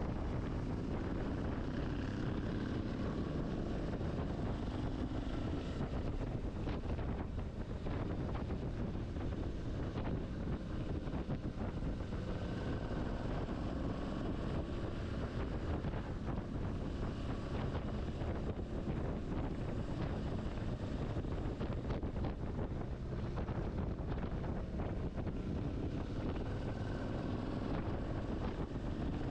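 Motorcycle riding at a steady speed: wind rushing over the microphone, with the engine running steadily underneath.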